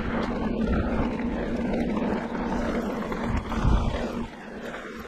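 Wind rushing over the microphone and knobby tyres rolling fast on hard-packed dirt singletrack during a mountain bike descent, with a steady low hum. The noise drops sharply about four seconds in.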